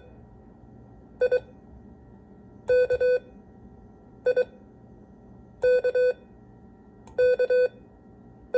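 Morse code beeps at a single steady pitch sending the letters I (two short dits) and K (dah-dit-dah) in a practice drill: I, K, I, K, K, with another I starting right at the end.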